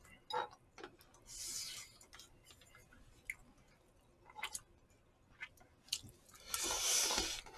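Eating sounds: chopsticks and spoons clicking against disposable food containers, and chewing. A soft rushing noise comes about a second in, and a longer, louder one near the end.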